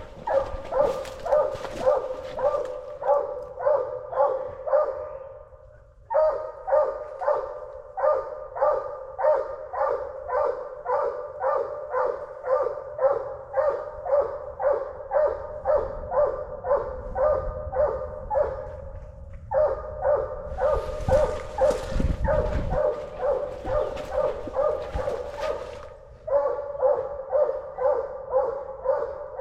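Coonhounds barking treed: a steady chop of barks at about two a second, pausing briefly a few times. A burst of noise comes about three quarters of the way through.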